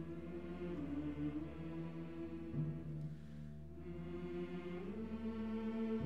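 Symphonic wind band playing soft, slow sustained chords whose harmony shifts a few times.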